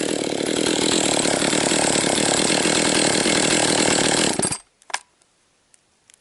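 Husqvarna 262XP two-stroke chainsaw running steadily at high revs while bucking firewood; the freshly rebuilt saw is being broken in. The sound cuts off suddenly about four and a half seconds in, leaving near quiet with a couple of faint clicks.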